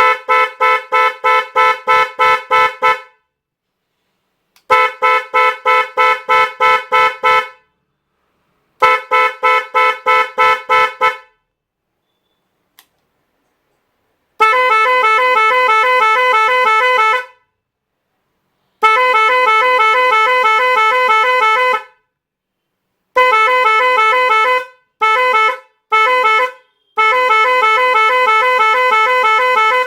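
Roots Windtone 90 electric horns sounding: first three stretches of rapid pulsing at about four blasts a second, then several steady blasts of two to three seconds each, two short toots, and a last long blast.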